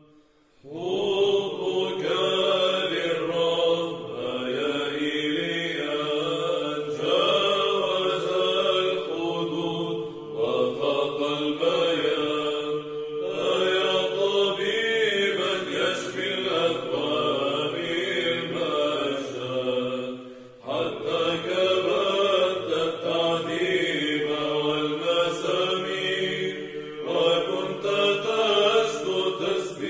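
A choir of monks chanting a Byzantine troparion in Arabic, the melody sung over a steady held drone note (ison). The chant comes in after a brief pause at the start and breaks off for a moment about twenty seconds in.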